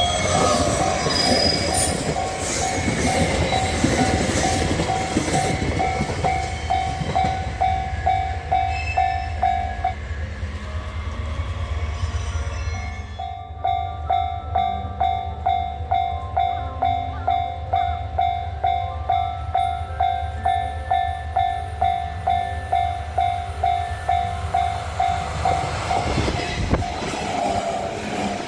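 Japanese level-crossing warning bell ringing in a steady ding about twice a second while a train rumbles and clatters past over the crossing. The bell stops about ten seconds in and starts ringing again a few seconds later.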